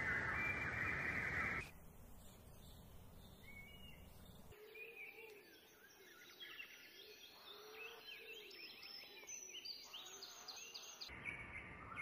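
Songbirds chirping and singing. A loud steady noise with chirps over it cuts off abruptly about two seconds in, leaving quieter bird song of many short, rapid high notes and trills. Near the end it cuts again to another noisy bed with chirps.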